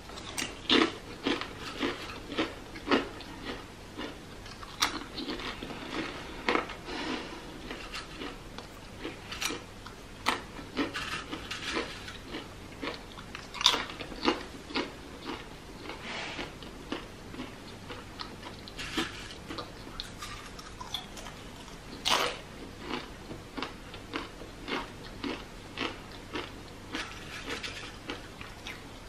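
Close-up crunching and chewing of crisp ripe plantain chips: sharp, irregular bites and crunches about once or twice a second, with softer chewing between.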